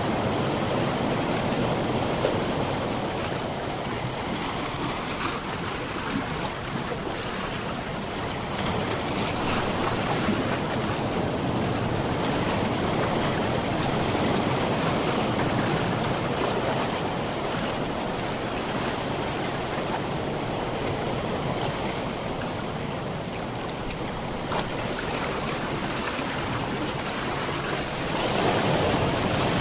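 Sea waves washing on a shore, a steady rush that swells and eases slowly every several seconds, growing louder near the end.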